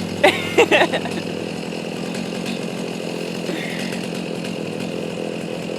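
Stihl MS 290 Farm Boss two-stroke chainsaw idling steadily at an even, unchanging speed.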